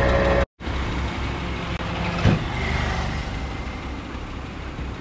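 A large van's engine idling with a steady low rumble. The sound drops out briefly about half a second in, and there is a short sharp sound about two seconds in.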